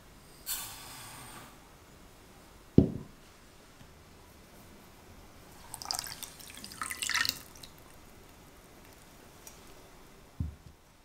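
Granulated sugar poured into an empty ceramic saucepan with a brief hiss, followed by a dull thud. Water is then poured in from a glass with a short splashing trickle, and another thud comes near the end.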